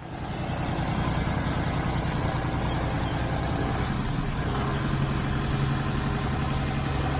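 Farm tractor engine running steadily under load as it tows a sailboat on a boat trailer. Its note settles into a steady drone about halfway through.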